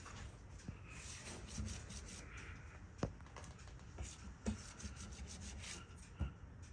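A hand rubbing back and forth across the painted trunk lid of a Mazda MX-5, skin dragging on the paint, with a few sharp clicks along the way.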